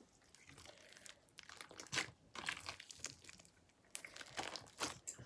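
Hands squishing and folding a large mass of mixed slimes, giving faint, irregular sticky clicks and crackles.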